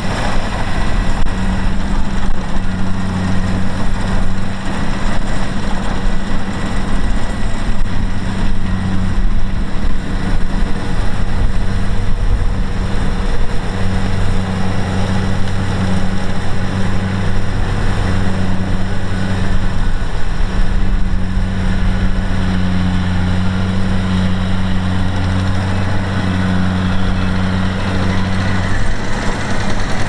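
Kubota DC-70 Plus combine harvester running steadily while cutting and threshing rice. Its diesel engine gives a constant, unchanging low note under the wider noise of the working machine.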